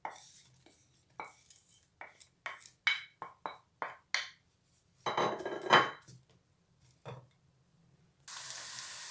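Wooden spatula knocking and scraping chopped onion out of a bowl into a frying pan, a quick run of short knocks, then a longer scrape as the onion is stirred in the pan. Near the end a steady sizzle of onion frying in oil starts suddenly.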